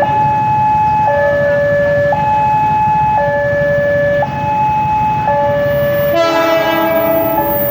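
A two-tone hi-lo siren, its high and low notes alternating evenly about once a second. About six seconds in, a train's air horn blasts a fuller chord over it for about a second.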